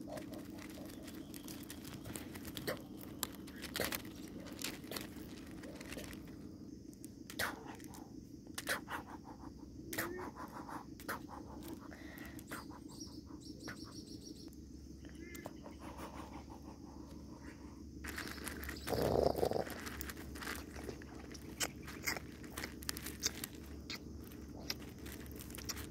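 Crushed gravel stones clicking and scraping as they are disturbed, in scattered small ticks over a steady low hum. A brief, louder sound lasting about a second comes about two-thirds of the way through.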